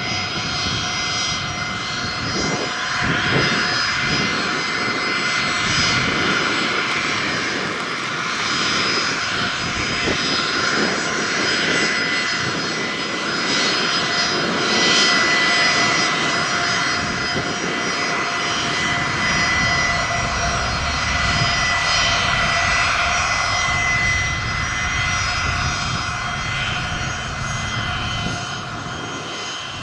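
Gulfstream G450 business jet taxiing at low thrust, its two rear-mounted Rolls-Royce Tay turbofans giving a steady whine of several high tones over a rushing noise, easing off slightly near the end.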